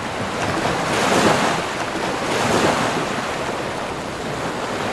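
Waves breaking and rushing along a sailboat's hull in rough seas, a steady wash that swells louder about a second in.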